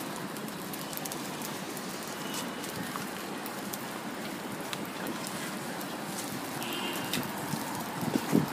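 Thin batter sheets sizzling steadily on a hot flat iron griddle, with a light scatter of faint crackles.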